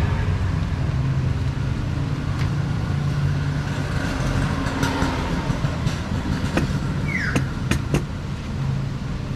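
Steady low engine-like hum, with a few sharp clicks and rustles of packaging being handled in the last few seconds.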